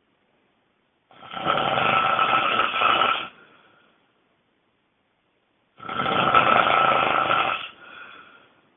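A person snoring loudly: two long snores, each about two seconds, some four and a half seconds apart, with silence between them.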